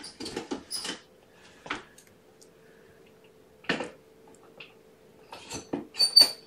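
A scattering of sharp clicks and clinks of hard objects being handled, a few close together at the start and the loudest pair near the end ringing briefly like metal or glass, over a faint steady hum.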